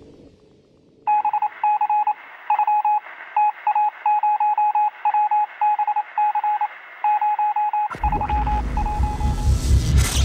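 Radio-like electronic beeping: one steady tone keyed on and off in short and long pulses, like Morse code, starting about a second in. Near the end a deep rumbling whoosh swells up under it and cuts off suddenly.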